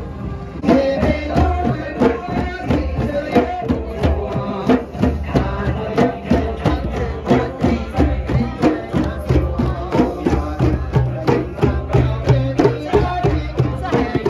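Group of djembe hand drums played together in a steady, even beat, with a melody running along with the drumming. It starts suddenly less than a second in.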